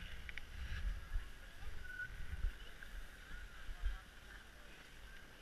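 Uneven low rumble of sliding down a packed-snow slope, with wind buffeting the microphone in gusts.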